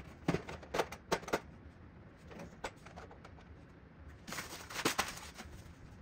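Hard plastic clicks and knocks from a 1979 Hot Wheels Service Center playset being unfolded and set down on a tile floor. There are four sharp knocks in the first second and a half, then a short scraping rattle ending in a knock about five seconds in.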